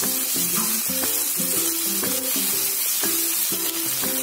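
Sliced onions, green chillies and ginger-garlic paste sizzling steadily in hot oil in a frying pan while being stirred with a wooden spoon. Background music with a melody of short, stepping notes plays under it.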